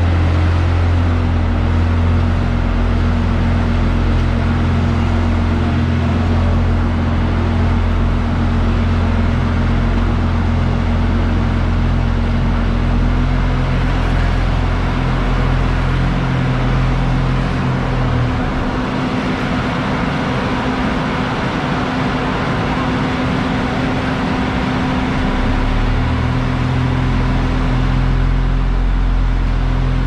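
Diesel engines of asphalt paving machinery running steadily, a low drone with a steady hum over it. About eighteen seconds in the deepest part of the drone drops away for several seconds, then comes back.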